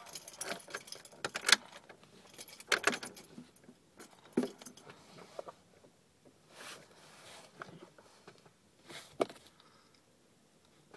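Handling noise of a phone propped on a car's dashboard: a hand bumping and rubbing against it, a string of sharp clicks and clatters for the first few seconds, then a softer rustle and one more click.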